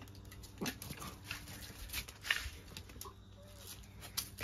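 Miniature dachshund making a couple of short, faint whining sounds, among light scuffs and clicks of movement.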